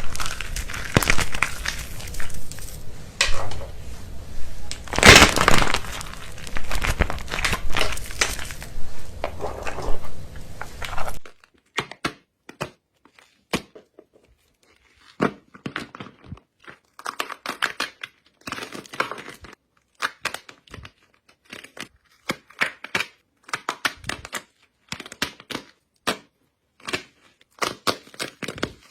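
Soap crunching and crackling as it breaks up. For about the first eleven seconds the crackling is dense and continuous; then it changes suddenly to separate sharp crunches and snaps with silence between them.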